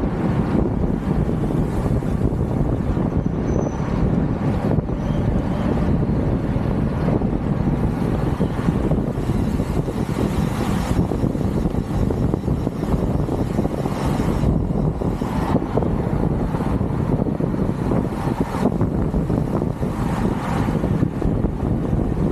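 Steady rumble of wind and road noise on the microphone while riding a bicycle.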